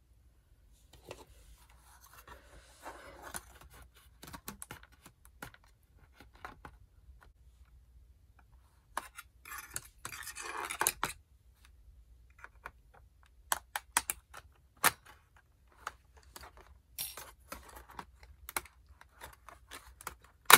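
Scattered clicks and scraping from hands and tools working on a laptop's plastic case and parts. There is a stretch of scraping about two seconds in and another around ten seconds, then a run of sharper single clicks.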